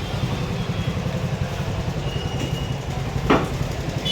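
A vehicle engine running steadily as a low, choppy rumble, with a short knock about three seconds in.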